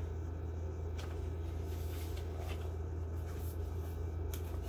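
Room tone: a steady low hum with two faint clicks, one about a second in and one near the end.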